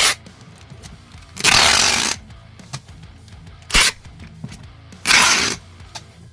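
Four sharp noisy bursts from packing a shipping box, the longest about two-thirds of a second, over background guitar music.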